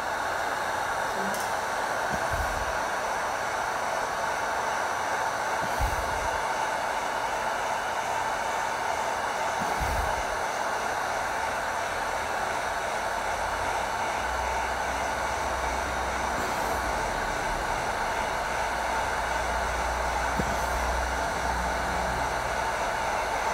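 Electric heat gun running steadily, blowing hot air over black paint protection film to heal its light scratches. A few dull bumps are heard in the first half.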